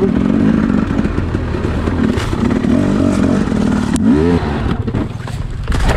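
Dirt bike engine revving up and down as it is ridden over rough woodland trail, with clattering from the bike. About four seconds in there is a sharp knock, then a quick rising rev, and the engine is a little quieter near the end.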